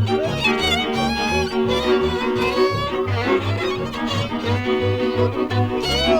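Transylvanian string band playing: a fiddle carries a wavering melody over steady held chords, with a bowed bass pulsing about twice a second underneath.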